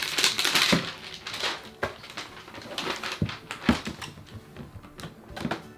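Toy packaging being handled: about a second and a half of rustling and crinkling, then scattered taps and knocks.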